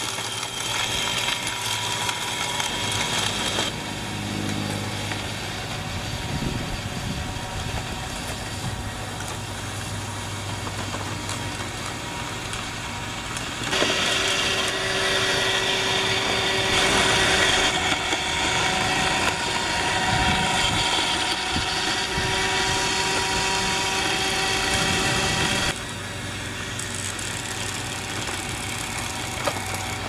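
iRobot Roomba robot vacuum running, a steady whir of its motors and vacuum fan. About halfway in it gets louder and stays louder until shortly before the end.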